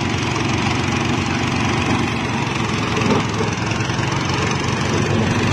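Power rice thresher running steadily: a small stationary engine driving the threshing drum, with an even fast engine rhythm.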